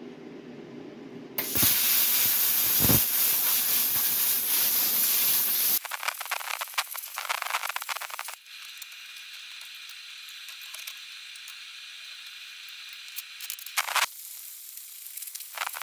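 Plasma cutter cutting steel plate: a loud rushing hiss of air starts about a second and a half in, turns harsher after about six seconds, then settles to a steadier, quieter hiss as the cut runs on, with a few sharp clicks near the end.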